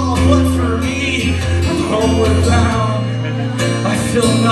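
Live amplified acoustic band music: guitar with a singing voice over steady low held notes.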